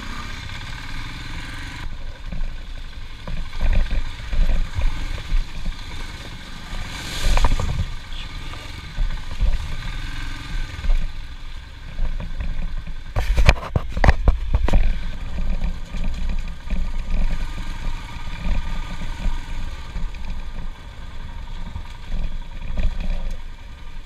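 Royal Enfield Himalayan's single-cylinder engine running as the bike rides over a rough, rocky dirt track. Knocks and rattles come from the bumps, sharpest about seven seconds in and in a cluster between about 13 and 15 seconds.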